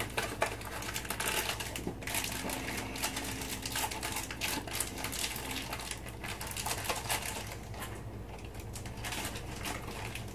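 Butter sizzling as it melts in a hot cast-iron skillet, a dense, steady run of small crackling pops.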